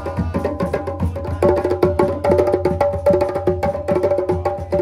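Djembe hand drums played together in a fast, dense rhythm, with a repeating pitched melody and a low bass under them.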